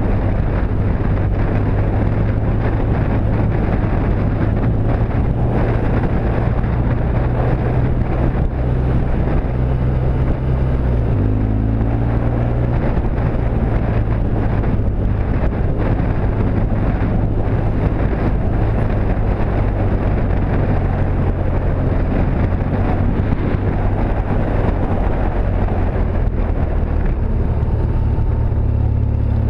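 BMW R1200GSA's boxer-twin engine running steadily under way, with wind noise on the microphone. The engine note changes pitch about eleven seconds in.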